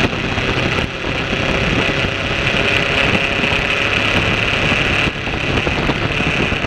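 Sport motorcycle riding at speed: the engine running steadily under a loud rush of wind noise, with short drops in level about a second in and again about five seconds in.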